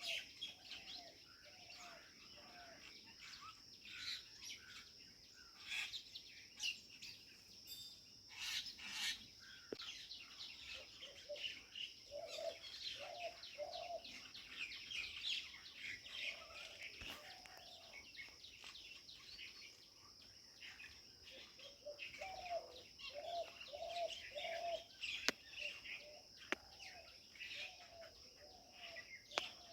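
Many birds chirping and calling in a tree, quick chirps overlapping over a steady high-pitched buzz. Runs of a low, repeated call come in several times, about two notes a second.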